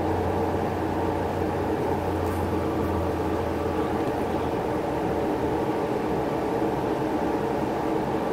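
Steady background rumble of downtown street traffic, with a low hum that fades out about four and a half seconds in.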